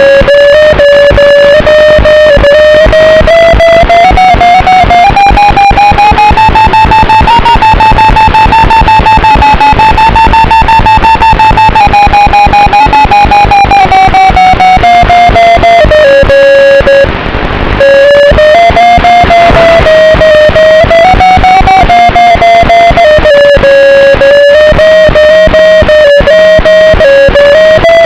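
FPV quadcopter's brushless motors and propellers whining as one buzzing tone that rises and falls smoothly with the throttle. There is a brief throttle cut about 17 seconds in.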